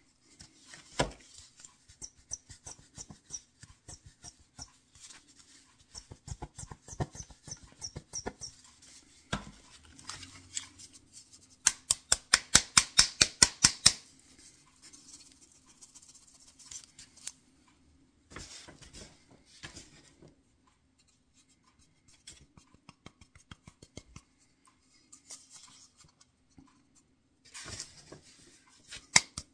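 Flocking fibres being puffed into a freshly painted box interior: runs of quick, evenly spaced sharp puffs, about seven a second, loudest about twelve seconds in and again at the very end, with quieter handling noises between.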